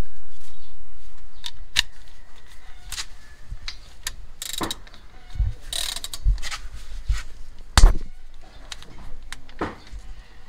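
Hand ratchet wrench clicking on the brake caliper bolts, mixed with metal clinks and a few knocks of tool and caliper; the loudest knock comes about eight seconds in.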